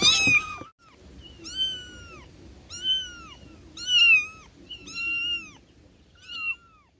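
Cat meowing. A louder meow cuts off just under a second in, then five short meows follow at about one a second, each rising and then falling in pitch.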